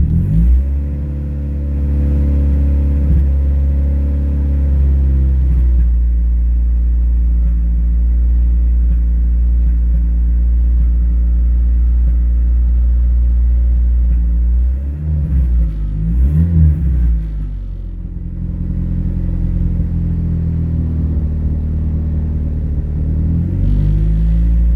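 Car engine idling with a misfire. About fifteen seconds in, the engine speed rises and falls a few times, then settles back to a steady idle.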